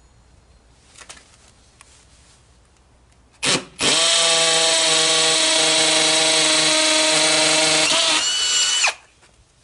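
Corded hammer drill boring a mounting hole in the wall. It gives a short blip, then runs steadily at high speed for about five seconds and stops.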